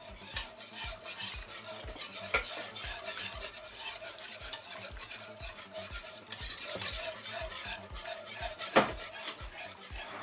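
Wire whisk stirring a thin roux-and-broth white sauce in a pan, in quick, even strokes with occasional clinks against the pan, over a faint sizzle from the sauce on the heat.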